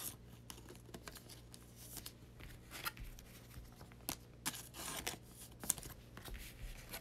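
Trading cards being handled and slid into clear plastic sleeves: faint, irregular rustling and scraping of card stock and plastic.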